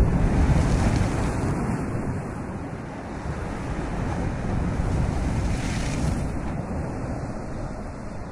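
Ocean surf: a steady rushing roar of breaking waves, mixed with wind. It swells about half a second in and again around five to six seconds.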